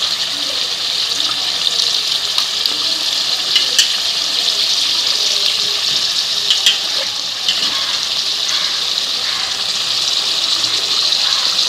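Chicken livers and gizzards sizzling in hot oil with fried onions and tomatoes: a steady hiss, with a few sharp crackles a few seconds in.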